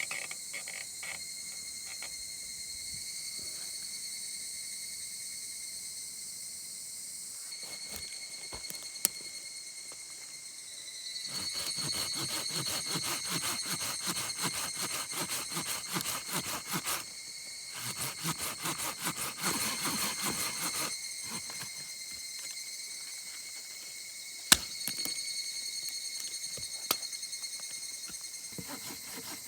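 Insects singing in steady, continuous high tones. Two stretches of dense, rapid crackling noise come in the middle, and there are a couple of single sharp clicks.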